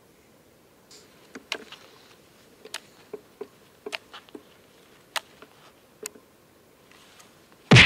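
A series of irregular light clicks and taps, then one much louder bang right at the end.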